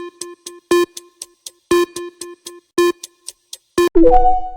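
Quiz countdown timer sound effect: a pitched electronic tick about once a second with softer ticks between. About four seconds in, a ringing chime marks time running out.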